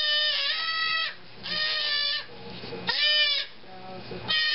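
Goat kid bleating noisily, four long cries with short gaps between them, in distress as a hot disbudding iron is held to its horn bud.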